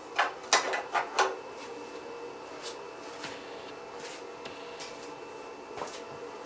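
Hands working tools and metal parts on top of a Ford 302 V8 engine: a quick run of about five knocks and clatters in the first second and a half, then a few light clicks.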